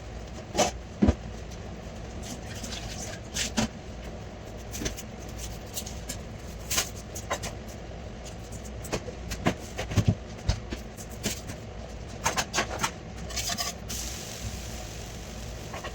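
Scattered knocks and clicks of objects being handled, over a steady low hum, with the loudest knocks about a second in and a quick cluster of clicks near the end.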